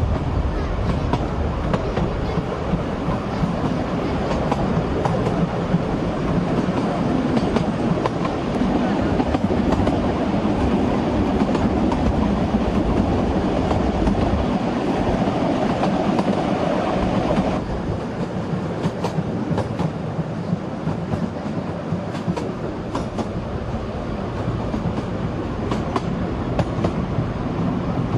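A narrow-gauge steam train running, heard from an open wagon behind the locomotive: a steady rumble with the wheels clicking over the rail joints. The noise eases a little about two-thirds of the way through.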